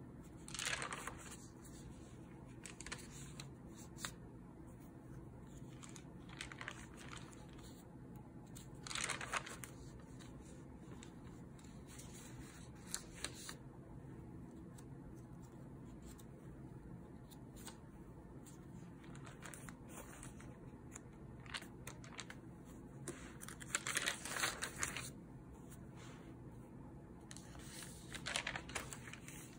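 Pages of a spiral-bound notebook turned by hand: a series of short paper rustles a few seconds apart, over a low steady room hum.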